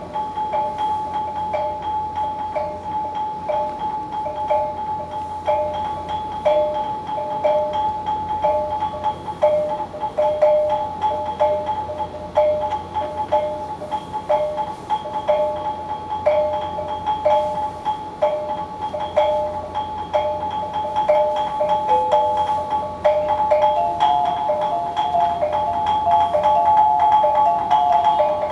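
Pangalay dance music on struck tuned percussion: a short ringing note figure repeats evenly, roughly every three-quarters of a second, over a steady held high tone. The figure turns busier, with more notes, in the last few seconds.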